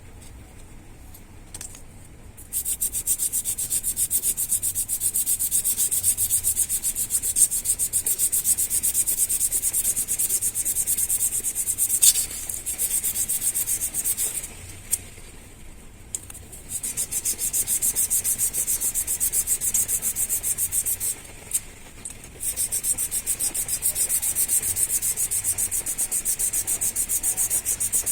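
Oil-contaminated MTB hydraulic disc-brake pads being rubbed back and forth on fine 1000-grit sandpaper, in quick even strokes with a few short pauses. The sanding scrubs off the oily, dirty surface that was making the brake squeal.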